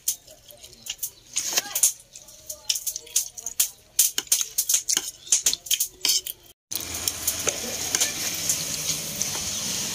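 Close-up eating noises: wet chewing clicks and lip smacks as rice is eaten by hand. About two-thirds of the way in, the sound drops out for a moment. After that a steady hiss runs under the clicks.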